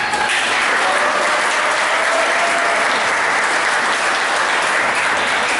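Crowd applauding, a dense steady clapping that starts abruptly and thins out near the end.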